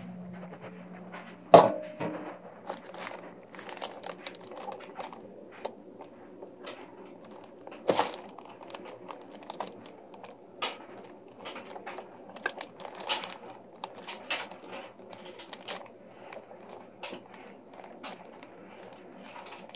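Clear plastic wrapping crinkling and rustling, with scattered small clicks and taps, as hands fit white plastic water tubing into a fitting on the unit. Two sharp knocks stand out, about a second and a half in and again near 8 s, and a low hum cuts off at the first knock.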